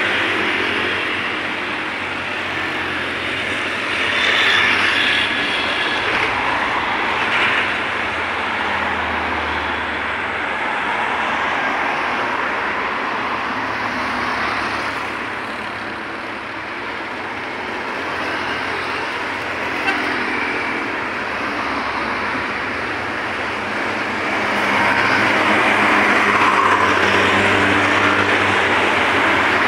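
Road traffic on a busy highway: motorcycles, scooters and cars passing in a steady stream, growing louder as vehicles go by close. The traffic is loudest near the end.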